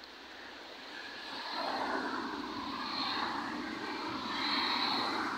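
Road traffic passing close by: the noise of car engines and tyres swells up, loudest about two seconds in and again near the end.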